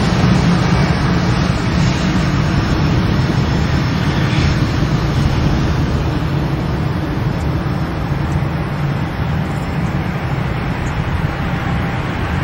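Airbus A320-family jetliner's twin jet engines running at high power as it speeds down the runway: a loud, continuous jet rumble that slowly fades as the aircraft moves away.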